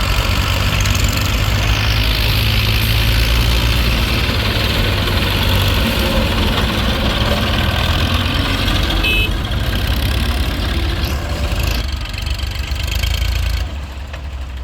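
Tractor and backhoe diesel engines running steadily at close range, with a deep rumble under a broad mechanical clatter; the level drops near the end.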